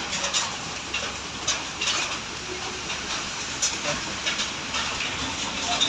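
Light metal clicks and taps as a scooter piston is fitted onto its connecting rod, over a steady background hiss.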